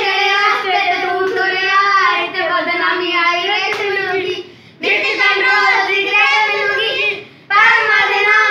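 Young boys singing a song together without instruments, in long held phrases broken by two short breaks, about four and seven seconds in.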